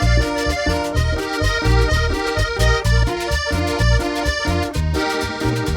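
Live cumbia from a chanchona band: an instrumental passage led by accordion playing chords and melody over a steady, pulsing bass and percussion beat.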